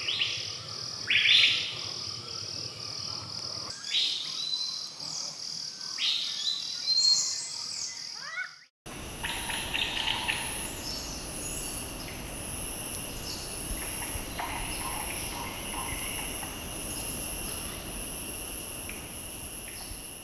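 Forest ambience of repeated bird chirps over a steady high insect drone. About nine seconds in it cuts to a different insect chorus, with one high pulsing chirp about once a second.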